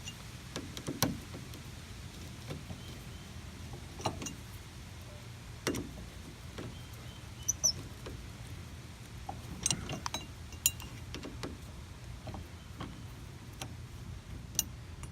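Scattered light clicks and metallic taps of hinge bolts being threaded in and turned by hand with a hand tool on a Jeep door hinge, over a steady low hum. There is a brief high squeak about seven and a half seconds in.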